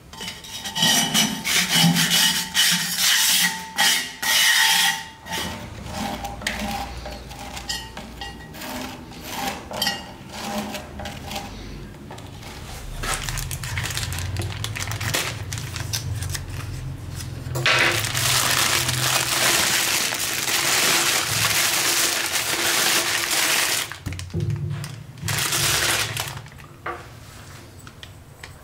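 Hands working a block of potter's clay and its plastic wrapping: scraping, light clicks and knocks, and a long stretch of loud plastic rustling about two-thirds of the way in as the bag is opened and pulled away.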